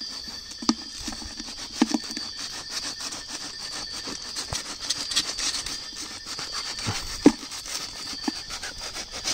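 A kitchen knife sawing and scraping through the hard, papery crust of a termite nest, with irregular crunches and knocks as the slice is cut free. A steady high drone of night insects runs underneath.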